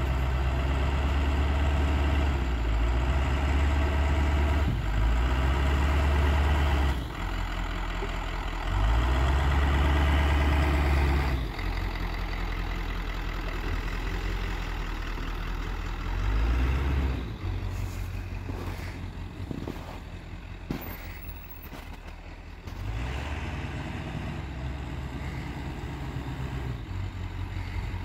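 Ford pickup truck's engine revving in repeated bursts under load as the truck reverses and works through deep snow. About seventeen seconds in it drops back to a steady idle.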